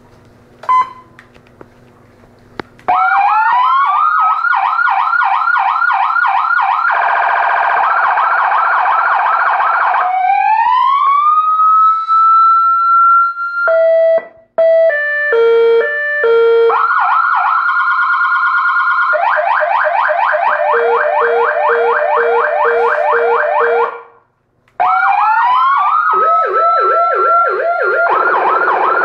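AS-990 400-watt 12-volt electronic siren, switched on about three seconds in and stepped through its tones: fast yelps, a rising wail held high, a stepping two-tone hi-lo, and a rapid warble. At times two tones sound together, and it cuts out briefly near the end before starting again with a wail.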